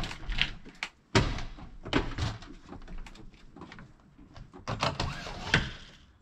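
A truck camper's entry door being unlatched and opened: a series of latch clicks and knocks, the loudest about a second in.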